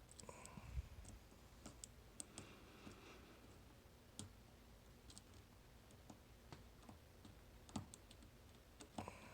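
Faint, irregular small metallic clicks of a dimple pick and tension tool working the pins of a 9-pin dimple lock held in a deep false set, with a few sharper clicks about a second in and near the end.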